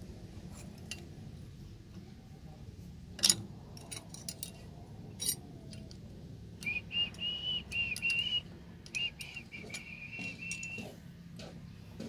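Sharp metal clicks and clinks as a hex key is fitted into the lock screw on a hydraulic cylinder piston, the loudest about three seconds in. From about six and a half seconds come a string of short, high, clear chirps or squeaks lasting some four seconds, over a steady low hum.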